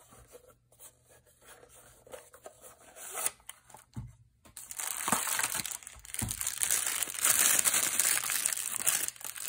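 Light clicks and knocks of a watch box and its plastic insert being handled, then from about halfway loud, continuous crinkling of the plastic wrapping as the watch is pulled out of its bag.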